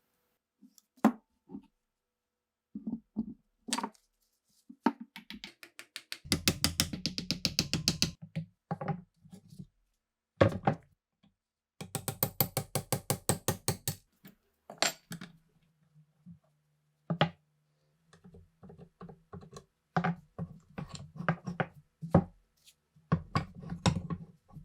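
Hand-tool work on rifle parts: scattered sharp knocks and clicks, with two runs of rapid, evenly spaced strokes about two seconds each, starting around 6 and 12 seconds in.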